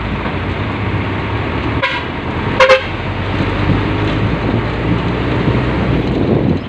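Steady engine and road noise of a moving vehicle, with a short horn beep about two seconds in and a louder horn toot just after it, the loudest sound.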